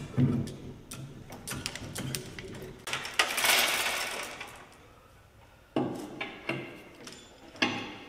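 Hand tools and metal parts clinking and knocking against the steel of a backhoe swing cylinder during reassembly. There is a short hiss about three seconds in, and a couple of heavier knocks in the second half.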